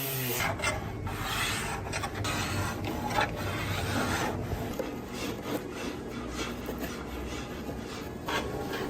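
Wood being abraded in repeated, uneven rasping strokes.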